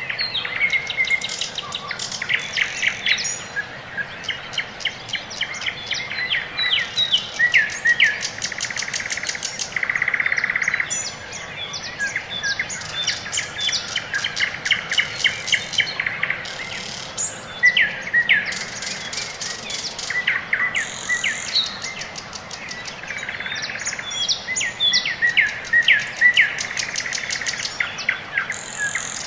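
Birds singing, with many chirps and fast trills of repeated notes, overlapping throughout.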